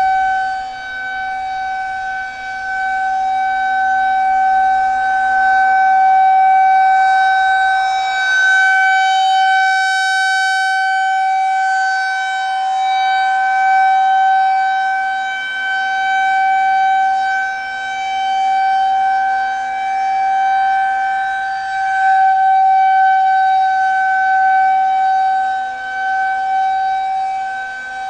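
Federal Signal 2001-130 rotating outdoor warning siren sounding a steady alert tone: one held pitch that swells and fades every few seconds as the rotating horn sweeps past.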